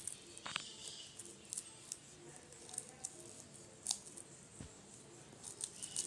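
Small, irregular crunching and clicking sounds of something eating, quick crisp snips scattered through a quiet background.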